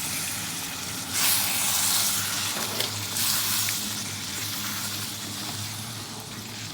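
Chicken masala sizzling in the pan, a steady frying hiss that swells for a couple of seconds about a second in, with a low steady hum underneath.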